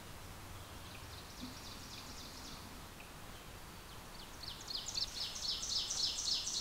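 A songbird singing: a short high trill about a second in, then a louder run of quick repeated notes that builds over the last two seconds.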